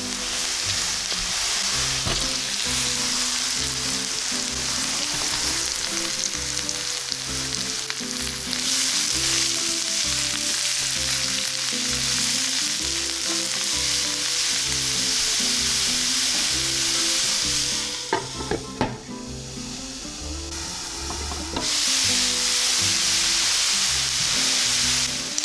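Vegetables sizzling steadily as they fry in oil in a pan. The sizzle is stirred now and then. About three quarters of the way through, the sizzle briefly drops and a few utensil knocks are heard. Quiet background music plays underneath.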